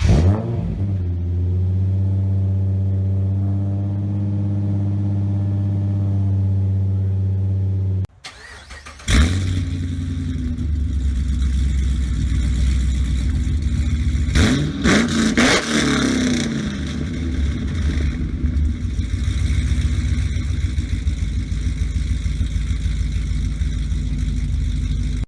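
A car engine starts and idles steadily. After a sudden cut about 8 s in, a Pontiac G8 GT's V8 starts, blips the throttle in a few quick revs about 15 s in, then runs on steadily.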